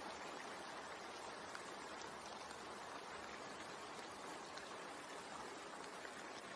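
Steady rain sound for sleep: an even patter with faint scattered drops.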